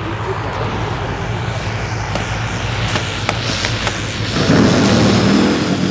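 Large electric RC scale model of a Gee Bee R-2 landing on grass, over a steady low hum. A few faint clicks come between two and three seconds in. About four and a half seconds in the motor and propeller power up louder with a thin high whine as the model goes around for a second attempt.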